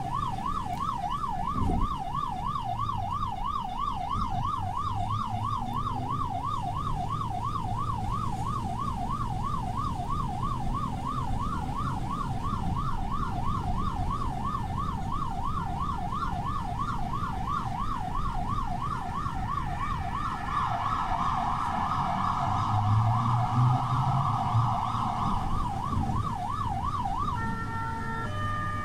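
Ambulance siren on a fast up-and-down warble, heard from the ambulance on the move with the vehicle's rumble underneath. About 20 seconds in a second siren overlaps it for a few seconds, and near the end the warble changes to a stepped two-tone call.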